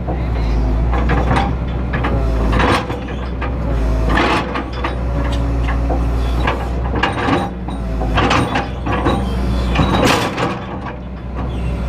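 Excavator running, its engine droning steadily, with repeated metal clanks and knocks every second or two as the machine is worked.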